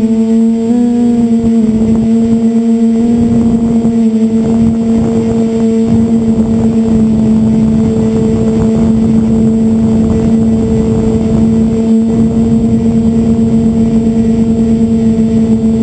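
DJI F450 quadcopter's motors and propellers humming steadily at one pitch, with air rushing beneath. The pitch wavers slightly in the first two seconds, then holds steady.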